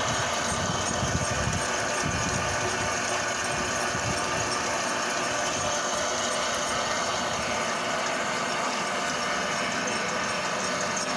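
Electric drum-type sewer drain cleaning machine running steadily, spinning its cable drum and turning the cable down a sewer cleanout, with a continuous motor hum and mechanical clatter.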